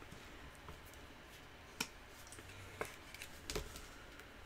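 Trading cards being handled and sorted: three faint sharp clicks, about a second apart, over quiet room noise.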